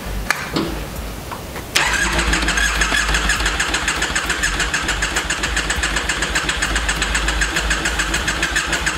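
Electric starter cranking the Triumph Bonneville Scrambler's parallel-twin engine, starting abruptly about two seconds in and turning it over at a steady, even pace without catching. The owner finds the engine has no spark.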